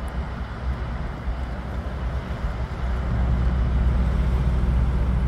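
City street traffic with a low engine hum from a nearby vehicle, growing louder about three seconds in.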